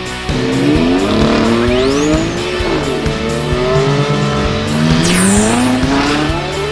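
Race car engine revving sound effects, the pitch climbing and dropping several times, with tire squeals, over background music.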